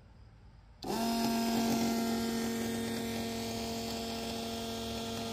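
A 12-volt DC electric fuel transfer pump switches on about a second in and runs with a steady electric hum.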